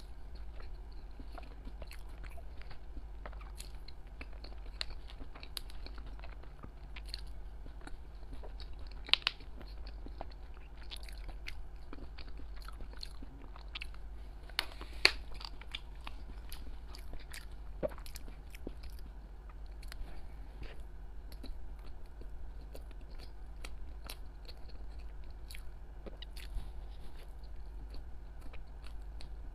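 Close-miked chewing and mouth sounds of a person eating soft coconut-milk cubes, with many small wet clicks and two sharper clicks about nine and fifteen seconds in, over a steady low hum.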